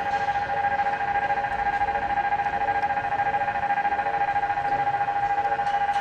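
Japanese railway level crossing's electronic warning bell ringing continuously in an even, repeating tone: the crossing is being held closed while trains are stopped for a safety check.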